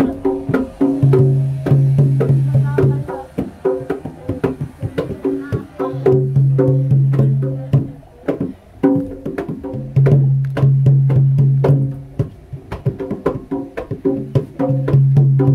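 Javanese jaranan accompaniment music: quick, dry drum and wood-like percussion strokes. Under them a low tone holds for about two seconds at a time and comes back four times.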